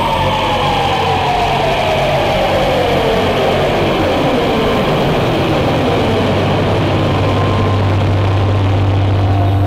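Experimental soundtrack drone: a tone with several overtones slides slowly downward over about six seconds, and a steady low hum comes in about six seconds in.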